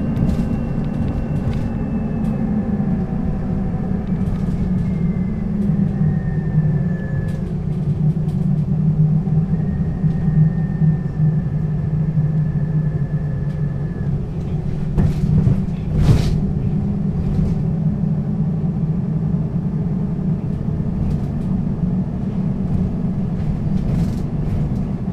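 Mercedes-Benz O 530 G Citaro articulated bus under way, its diesel engine and drivetrain rumbling steadily. A faint high whine glides down in pitch over the first several seconds and returns as a steady tone a little later. A single loud knock comes about sixteen seconds in.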